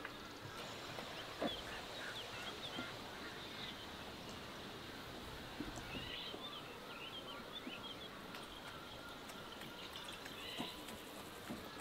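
Small birds chirping on and off in the background, with a few knocks of a cleaver chopping lamb on a wooden cutting board, the loudest about a second and a half in.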